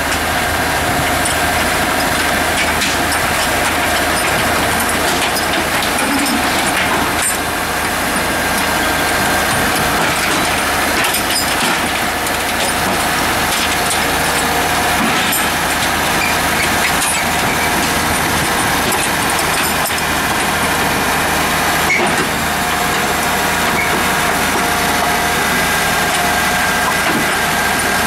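Komatsu 931.1 wheeled forest harvester's diesel engine running steadily under load as the machine crawls up onto a low-loader trailer, with a steady whine over the engine and a few light clanks.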